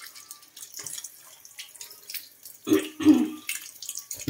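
Kitchen tap running and splashing as hands rub and rinse quinces under the stream in a sink. About three seconds in come two short, louder low sounds.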